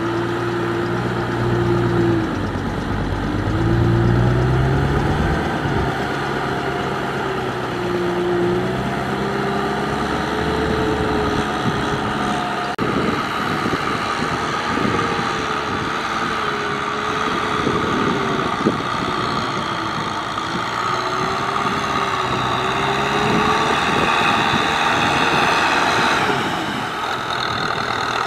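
Kubota M6040SU tractor's diesel engine running under load as it drives a rear rotary tiller through paddy mud. The engine speed rises and falls again and again.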